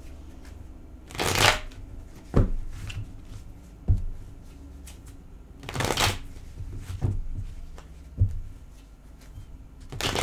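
A tarot deck being shuffled by hand: three short rustling bursts of cards about four seconds apart, with a few sharp taps in between.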